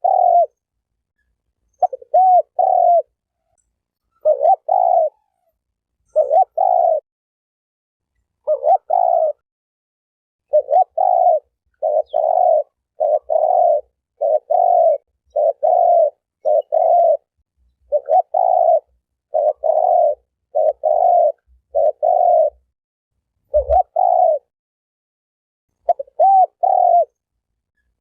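Spotted dove (terkukur) cooing: short, repeated coo phrases, spaced out at first, then coming in a fast, nearly unbroken run through the middle before spacing out again. The gaps between coos are dead silent.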